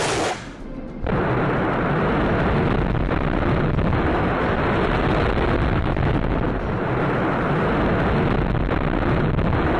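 TOS-1 'Buratino' thermobaric rocket launchers firing a salvo: a continuous roar of rockets launching one after another, setting in about a second in after a short drop.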